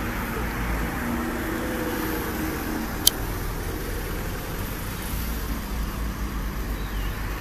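Road traffic: a motor vehicle running by, a steady rumble with a faint hum, and one sharp click about three seconds in.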